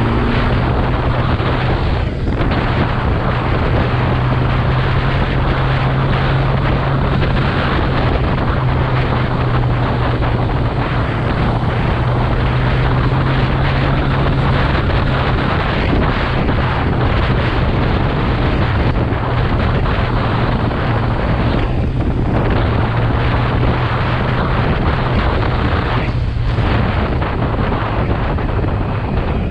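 Kawasaki motorcycle cruising at a steady speed, the engine holding one low, constant note under heavy wind noise on the camera microphone. The wind noise dips briefly three times.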